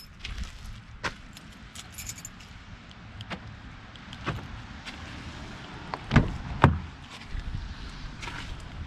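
Light metallic jingling and scattered clicks, like keys being handled, with two louder heavy thuds about six seconds in, half a second apart.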